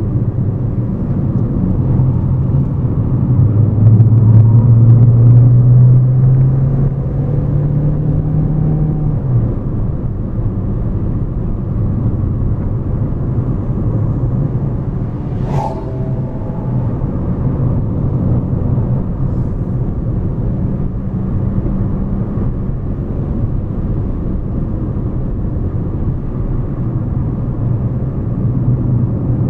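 Hyundai Elantra driving with a steady engine and road rumble. The engine note rises for several seconds near the start as the car accelerates, then settles. A single sharp click comes about halfway through.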